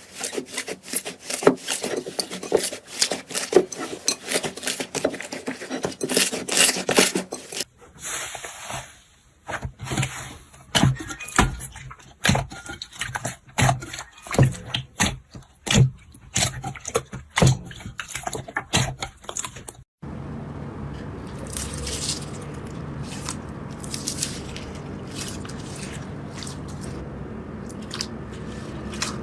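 Slime being squeezed and worked by hand, making many quick sticky clicks and crackles. The texture changes abruptly twice as one clip cuts to the next, the last part with sparser pops over a steady hiss.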